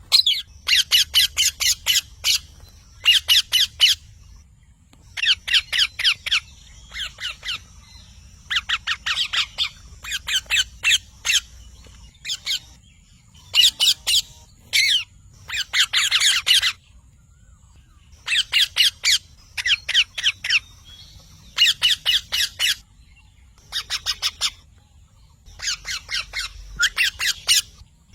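Parrot screeching in repeated bursts of rapid, shrill calls, each burst a second or two long with short pauses between.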